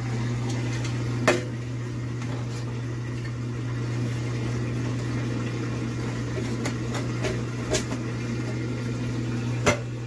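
Sheet-metal access cover of an electric water heater being fitted back over the thermostat: a few sharp clicks and knocks, the loudest about a second in and near the end, with lighter ticks between. A steady low hum runs underneath.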